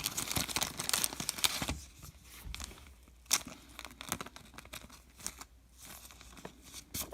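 Plastic card-pack wrapper crinkling and tearing for about the first two seconds, then quieter scattered clicks and rustles of cards being handled.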